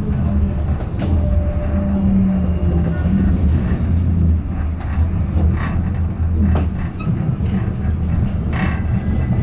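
A Stadler Class 399 Citylink tram-train running along the line, heard on board: a steady low rumble and motor hum, with a few brief clicks.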